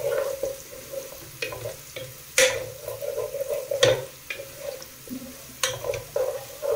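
Sliced onions and ginger-garlic paste sizzling as they fry and start to brown in oil in a pot, stirred and scraped with a wooden spoon, with a few sharp knocks of the spoon against the pot.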